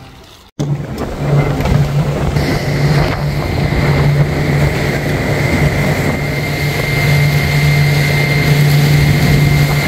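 Outboard motor running steadily with the boat under way, a constant low hum over a rush of wind and water. It starts abruptly about half a second in.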